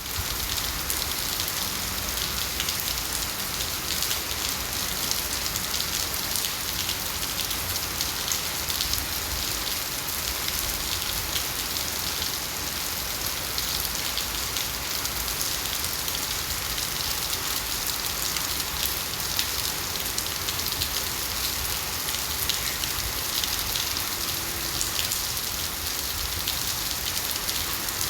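Steady rainfall with no wind: an even hiss of rain on surfaces, thick with fine drop ticks, holding at a constant level.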